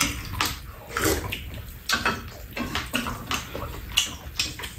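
Close-up eating sounds of people chewing rice and kimchi with their mouths: a string of short, wet smacking noises coming irregularly, roughly every half second.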